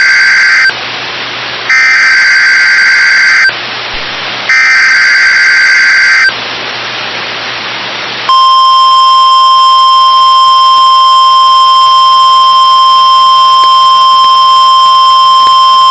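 Emergency Alert System tones on NOAA Weather Radio. The tail of one SAME digital header burst is followed by two more harsh data bursts, each just under two seconds long, with about a second of radio hiss between them. After a two-second gap of hiss, the steady single-tone 1050 Hz weather radio warning alarm starts about eight seconds in and holds. Together they signal that a coded alert, here a tornado watch, is about to be read.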